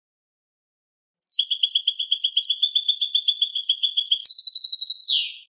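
European goldfinch singing. About a second in it starts a fast trill of evenly repeated notes, then near the end switches to a higher phrase and closes with a single falling note.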